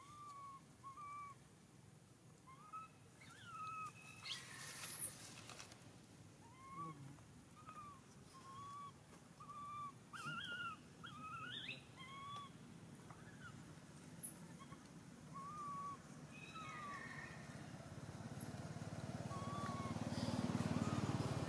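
Infant macaque calling over and over: short, arched, whistle-like coos about once a second, with a few higher, sharper squeals between them. Near the end a rushing noise swells and becomes the loudest sound.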